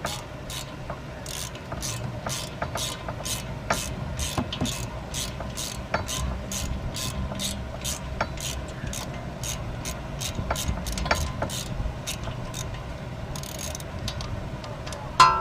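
Hand ratchet clicking steadily, about two to three clicks a second, as the triple-square bolts holding a front wheel hub assembly are backed out. A single sharp metal clink comes near the end.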